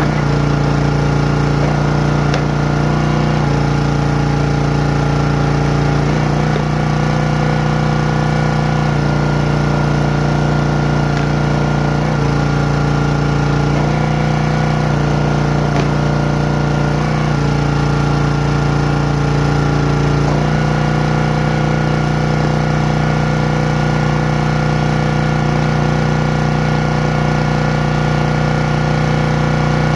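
Champion 27-ton log splitter's small gas engine running steadily while the hydraulic ram splits firewood rounds. The engine's note shifts every few seconds as the ram works.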